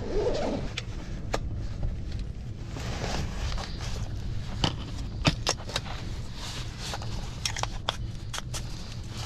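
Strong wind buffeting the microphone as a steady low rumble, with scattered sharp ticks and clicks, most of them in the second half.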